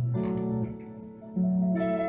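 Ibanez GRG270 electric guitar with Seymour Duncan '59 humbuckers, played on a clean tone through a lot of delay. Picked notes ring out, and new notes are picked about one and a half seconds in.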